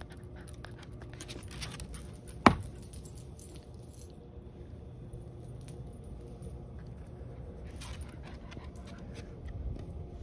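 Faint rustling and scattered light clicks, with one short, sharp knock about two and a half seconds in.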